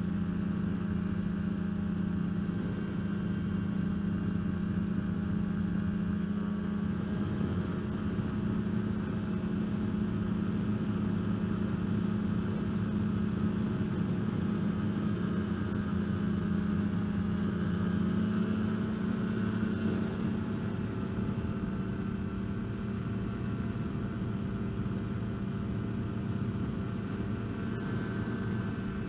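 Kolb Firefly ultralight's two-stroke pusher engine and propeller droning steadily in cruise flight, with wind rushing past the open cockpit. The engine note shifts slightly about a quarter of the way in and again a little past halfway.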